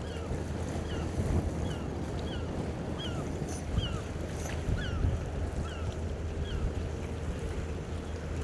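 A tug's diesel engine drones steadily under gusty wind on the microphone, while a bird gives short chirping calls repeated about every half second.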